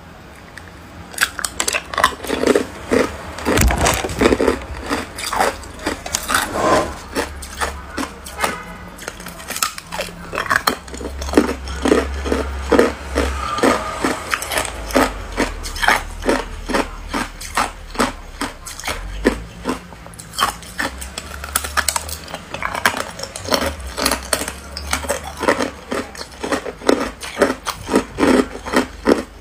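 A cluster of clear ice cubes frozen together, handled and twisted apart by hand close to the microphone: a dense series of sharp crackles and clicks of ice on ice, coming in quick runs.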